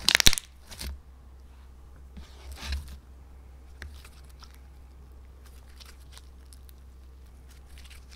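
Clear slime coloured with lipstick and eyeshadow being squeezed and stretched by hand: a short, loud sticky crackle at the very start, a softer squelch about two and a half seconds in, then only faint scattered clicks and pops. A low steady hum lies underneath.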